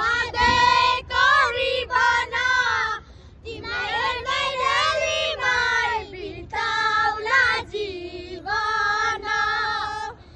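A group of children singing a song together in unison, in sung phrases with short breaks between them.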